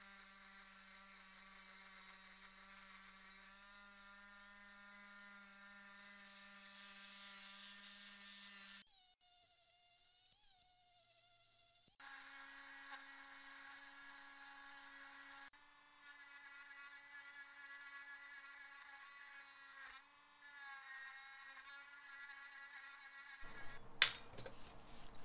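Small electric power tool running with a steady whine. The pitch jumps to a new steady note several times where the footage is cut. A sharp tap comes near the end.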